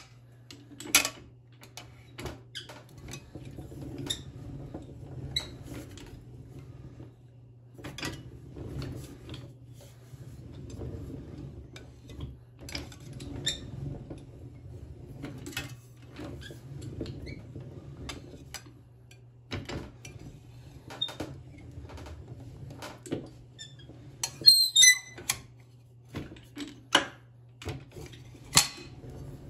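Sheet metal being rolled into a muffler tube on a hand-cranked slip roll: irregular clicks, knocks and metallic clinks as the curled sheet shifts and rattles against the rollers, with a brief ringing clang about 25 seconds in, over a steady low hum.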